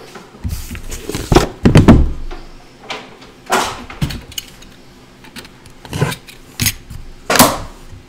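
A 2018 National Treasures Football trading-card box being handled and opened on a table: a string of sharp knocks, light thuds and scraping rustles, about eight in all, as the box is moved and its lid lifted.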